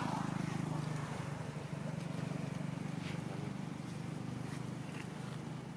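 Steady low drone of a running engine, easing slightly in level over the last seconds, with a few faint clicks.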